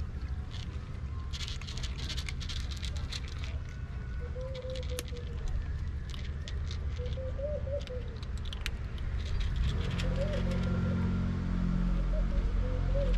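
A cat crunching dry kibble from a plastic plate, a rapid run of small crisp clicks, over a steady low rumble that grows louder near the end.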